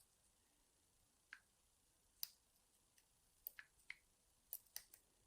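Faint, irregular small clicks of a lock pick and tension tool working the mushroom pin tumblers inside a small 30mm Draper padlock, coming more often in the second half.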